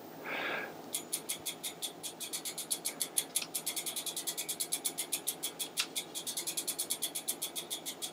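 Rear wheel of an e-bike with a hub motor spun by hand, its freewheel ratchet ticking in a fast, even run of about seven to eight clicks a second, as the rebuilt wheel is checked for wobble after a new spoke is tightened.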